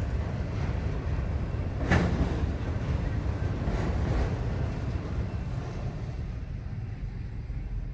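Long train rolling past a railroad crossing: a steady low rumble, with a brief louder clatter about two seconds in.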